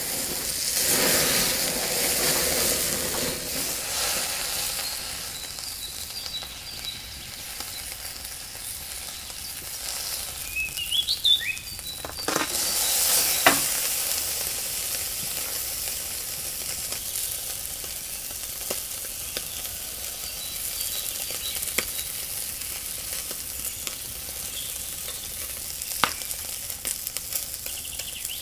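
Tomahawk steak sizzling on a hot cast iron grill over charcoal, a steady hiss with sharp crackles. It is loudest in the first few seconds after the steak is set down and swells again briefly about halfway through. A bird chirps a few times just before the middle.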